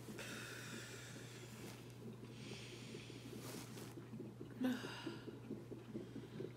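Slow, deep breaths of a woman breathing through a labour contraction, with long exhales out through the mouth, over a steady low hum.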